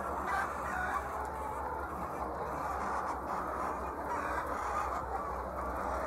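A large flock of white laying hens clucking and calling all at once, a dense, steady chatter of overlapping voices.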